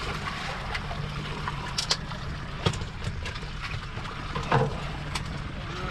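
A fishing boat's motor running steadily, with a few sharp knocks and clicks on board about two, three and four and a half seconds in.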